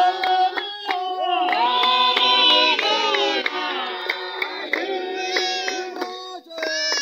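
A group of voices singing a Shona hymn together on long held notes, with steady hand clapping through it.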